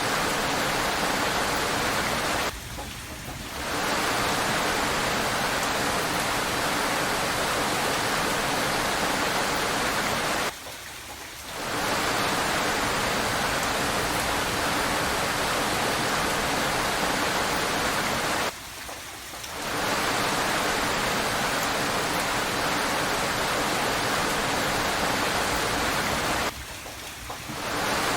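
Steady rain hiss that drops sharply for about a second four times, roughly every eight seconds, and eases back in each time.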